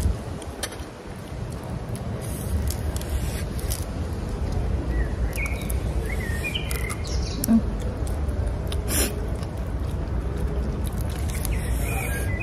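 A few short bird chirps about five to seven seconds in, over a steady low rumble, with scattered sharp clicks and crackles from grilled shrimp being peeled by hand.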